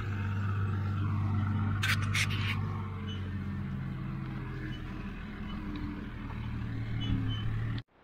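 Old red farm tractor's engine running steadily with a low drone while towing a grain auger, with a few sharp clicks about two seconds in. The sound cuts off suddenly near the end.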